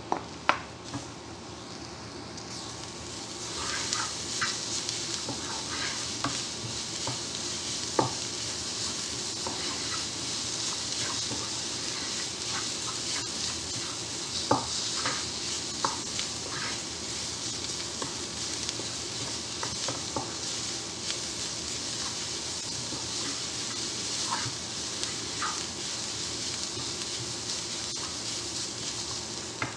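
Sliced onions sizzling in hot oil in a frying pan as they are stirred with a wooden spatula, which gives scattered taps and scrapes against the pan. The sizzle swells about three seconds in, as the freshly added onions take the heat, then holds steady.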